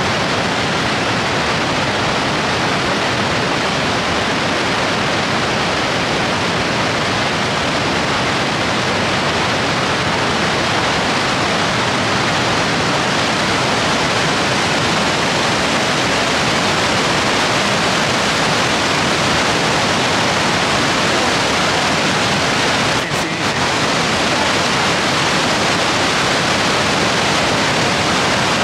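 Steady heavy rush of the Horseshoe Falls at Niagara, a dense even noise of falling water. It dips briefly about two-thirds of the way through.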